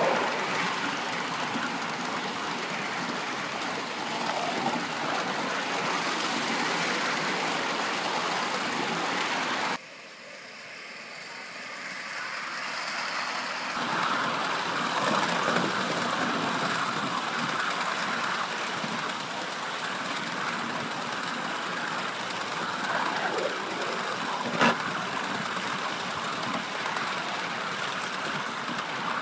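3½-inch gauge live-steam model of an LMS Stanier 8F 2-8-0 running along its track: a steady noisy running sound of the engine and its wheels on the rails. About ten seconds in the sound drops suddenly and builds back up over a few seconds, and a single sharp click comes near the end.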